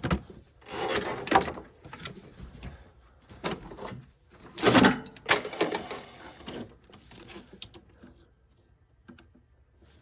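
Handling noise of a test light being worked around relay terminals: scattered clicks, taps and scrapes, with two louder rustling bursts, about a second in and just before the middle, then quieter toward the end.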